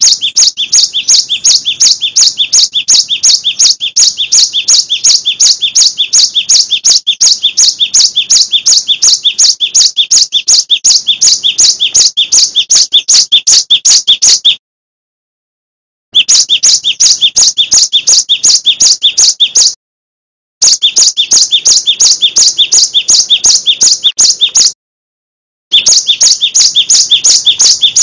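Cinereous tit (gelatik batu) singing loudly and without letup: a fast, even string of sharp two-part notes, about four a second. The song cuts off dead three times for about a second at a time.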